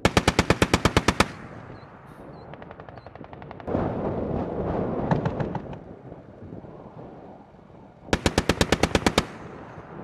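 A vehicle turret-mounted machine gun firing in bursts, about ten shots a second. A burst of about a dozen rounds comes at the start, a shorter, fainter burst a few seconds in, and another burst of about a dozen rounds near the end. Between the bursts a rushing noise rises for a couple of seconds.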